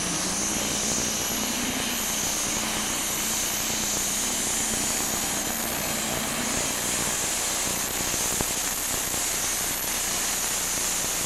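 Super stock pulling tractor's turbocharged engine running at full throttle under load as it pulls a weight-transfer sled. A steady high-pitched whine sits over the engine noise.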